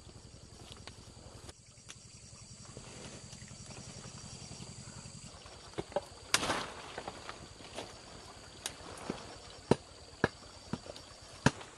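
Sharp, irregular knocks and taps of woodworking, the loudest about six seconds in. Under them is a low pulsing hum that stops about five seconds in.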